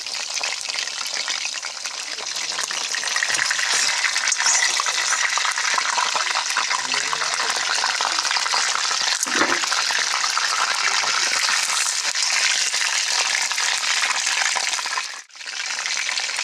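Chicken leg quarters sizzling and crackling as they fry in hot oil in a wok, with one sharp knock about nine seconds in and a brief break near the end.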